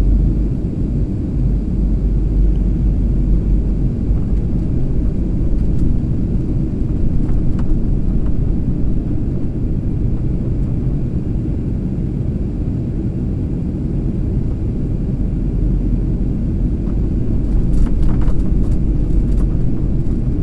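Jet airliner cabin noise: a steady low rumble of engines and airflow heard from a window seat, with a few faint ticks near the end.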